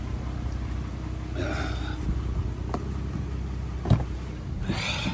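Minivan door latch clicking sharply about four seconds in as the outside handle is pulled, followed by a brief rush of noise as the door begins to open. A steady low rumble runs underneath.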